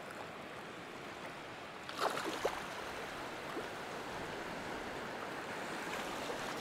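Small sea waves washing and lapping over a shallow, stony shoreline: a steady rushing wash of water that grows a little louder about two seconds in, with a few short splashes.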